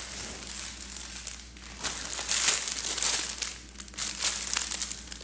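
Plastic packaging crinkling and rustling as it is handled and opened, loudest near the middle.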